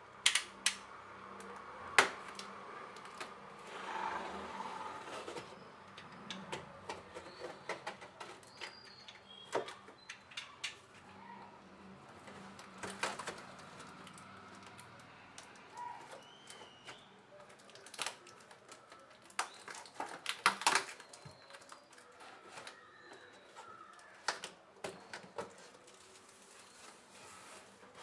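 A cardboard carton being opened by hand: a blade slitting the packing tape, then the flaps pulled apart and the cardboard handled, heard as irregular sharp clicks and taps with short scraping rustles.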